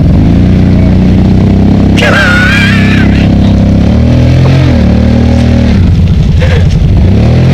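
Off-road vehicle engine revving up and falling back several times, a stuck machine trying to power out of a mushy creek crossing and digging itself in with its wheels.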